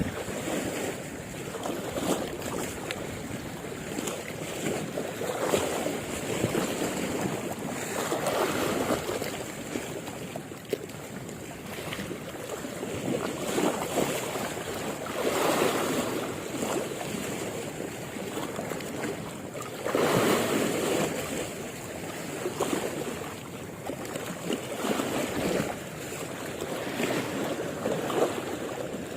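Sea waves washing in, surging every few seconds, with wind buffeting the microphone.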